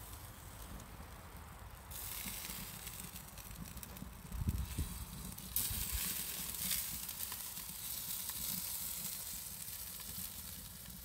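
Chicken breasts sizzling on a grill over a wood fire, a steady hiss with scattered crackles that grows a little louder about two seconds in and again about halfway through.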